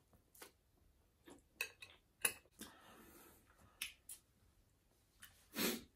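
Close-miked eating of ramen noodles: soft chewing with scattered short, sharp mouth clicks and light clicks of a metal fork, and one longer, louder sound near the end.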